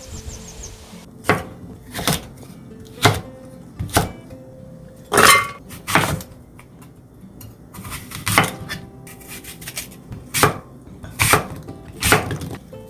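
Kitchen knife chopping on a cutting board in single separate strokes, roughly one a second, over faint background music.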